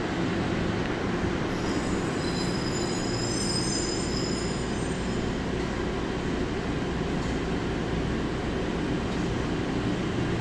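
Denver airport's automated underground train running through its tunnel, heard from inside the car: a steady rumble and rush, with a high squeal from about two to five seconds in.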